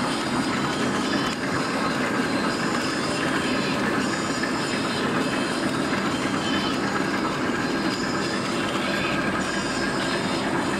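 A 6mm plastic straw bending machine running steadily, with a continuous dense mechanical rattle from its moving parts and conveyor.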